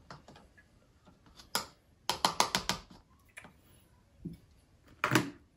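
Metal teaspoon tapped against a plastic funnel to knock dish soap off it: light sharp clicks, a quick run of six or seven about two seconds in, with a few single knocks around it and a louder one near the end.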